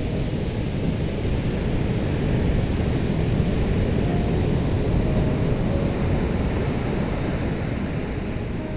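Ocean surf breaking in a continuous deep rush, swelling for a few seconds and easing off near the end.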